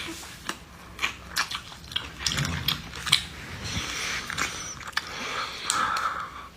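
A person biting and chewing braised goose meat close to the microphone: a run of short, irregular clicks from the mouth and teeth.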